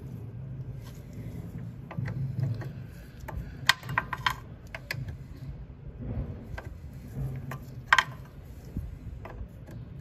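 Ratchet wrench clicking and metal tools clinking while a scooter's rear brake caliper bolts are tightened, with sharp metallic clinks about four seconds in and again near eight seconds.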